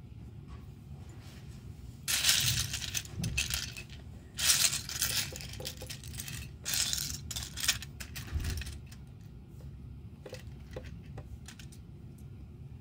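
Loose plastic LEGO pieces clicking and clattering against each other as a hand rummages through and spreads out a pile of them. This comes in three bursts in the first eight seconds, followed by a few faint clicks.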